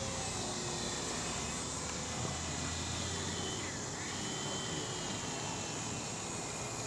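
The small electric motor and propeller of a Parkzone Micro Citabria RC plane whining faintly in flight, its pitch wavering and bending around the middle, over a steady hiss.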